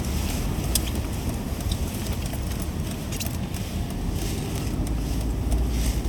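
Steady low engine and road rumble inside a moving Mercedes-Benz car's cabin, with a few faint clicks and rattles.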